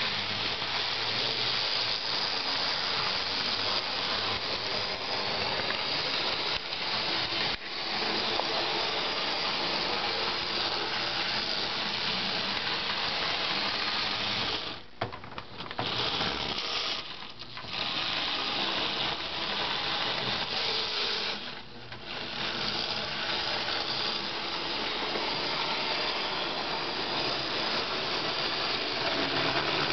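Bachmann N scale 4-4-0 model steam locomotive running on its track, its small electric motor and gear drive making a steady whirring rattle. The sound drops out briefly three times about halfway through.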